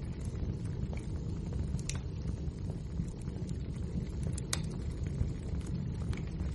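Wood fire burning in a fireplace: a steady low rumble of flame with scattered sharp crackles and pops from the burning logs, a couple of louder pops about two and four and a half seconds in.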